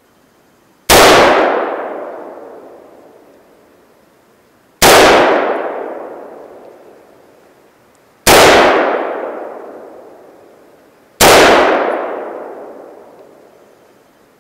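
Four single rifle shots from a Century Arms AR-15 (M16A1 clone), spaced three to four seconds apart, each a sharp crack followed by a long echoing tail that takes about three seconds to die away.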